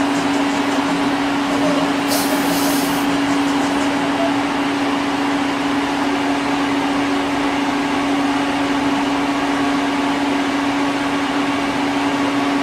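Citizen M32 CNC Swiss lathe running with a steady mechanical hum and one constant tone. A short hiss comes about two seconds in.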